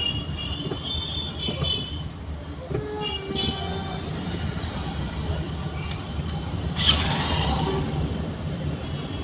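Street traffic heard from inside a slowly moving car: a steady low engine and road rumble, with short high-pitched horn beeps from surrounding vehicles in the first few seconds and a brief louder burst about seven seconds in.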